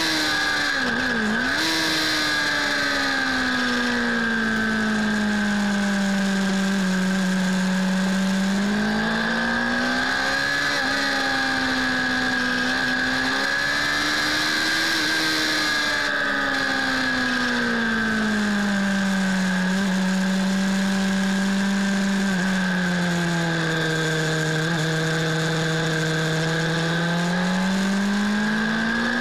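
Suzuki Bandit 600 S inline-four engine under way, heard from the handlebar with wind rushing past. Its revs drop sharply about a second in, then sweep slowly down and back up several times as the bike brakes and accelerates through corners, climbing again near the end.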